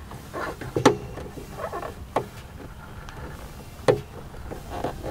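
Rubber grommet and corrugated plastic wire conduit being worked back into a car's liftgate by hand: rubbing and squeaking, with three sharp clicks, about a second in, a little after two seconds and just before four seconds.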